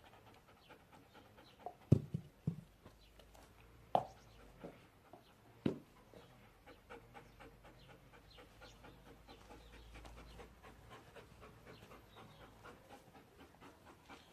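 A dog panting in a quick, even rhythm. A few short, sharp, louder sounds come in the first six seconds, the loudest about two seconds in.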